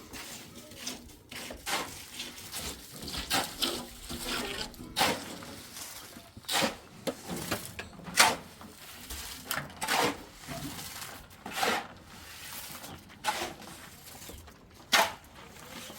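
A series of short, irregular scraping strokes, roughly one a second, the loudest a little past halfway.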